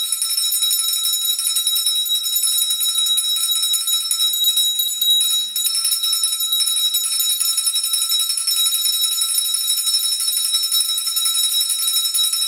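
Two small brass handbells shaken fast and rung without a break, a steady bright ringing: the last bell, rung to mark the end of the school year.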